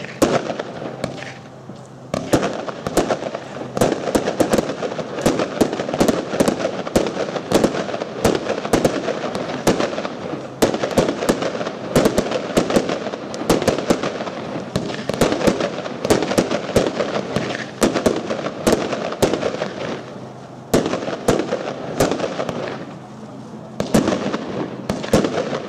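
Fireworks display: a rapid, nearly continuous string of sharp bangs and crackles from aerial shells bursting overhead, with brief lulls about two seconds in and again around twenty and twenty-three seconds in.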